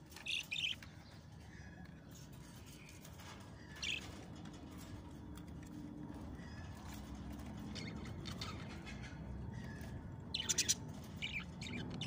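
Budgerigars giving short chirps and squawks: two calls right at the start, one about four seconds in, and a quick cluster near the end, over a steady low background rumble.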